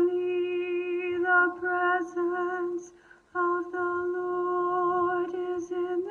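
Music: long held notes, sung or hummed, opening a worship song, with a short break about three seconds in.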